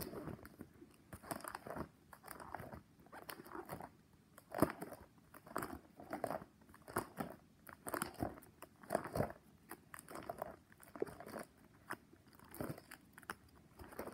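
Nine-pocket plastic binder pages full of trading cards crinkling and rustling as they are handled and turned, in irregular crackly bursts.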